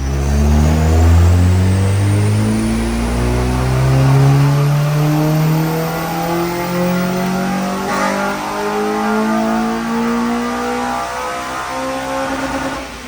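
Honda Civic EP3 Type R's K20 four-cylinder engine making a full-throttle pull on a dyno, its note rising steadily through the rev range for about twelve seconds, then dropping away as the throttle closes near the end. This is a baseline power run before a remap.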